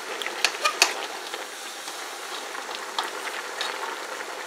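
Smothered cabbage and pickled pork sizzling steadily as it cooks down in a metal pot, stirred with a metal spoon that clicks lightly against the pot a few times.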